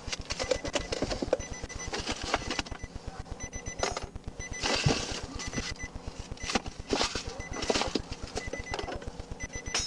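Electronic beeping in short repeated tones, over a fast steady low pulsing, with rustling and knocking handling noise, loudest about halfway through and again a couple of seconds later.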